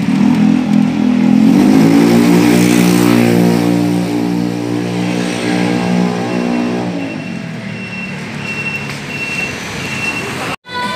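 A motor vehicle's engine running close by on the street, its pitch rising about two seconds in, holding steady, then fading away after about seven seconds. A faint, repeated short high beep is heard in the second half, and the sound cuts out for a moment just before the end.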